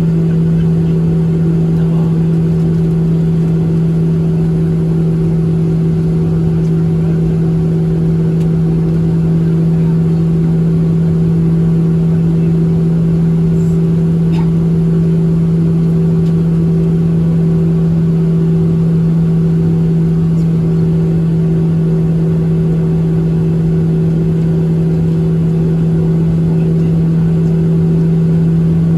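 Steady drone of a Boeing 737-700's CFM56-7B jet engines heard inside the passenger cabin, a constant low hum with a fainter higher tone over even rushing noise.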